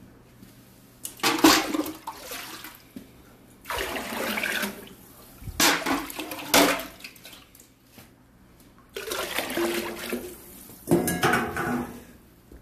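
Water being poured in about five separate splashing pours, each a second or so long, to dilute a pot of concentrated broth stock.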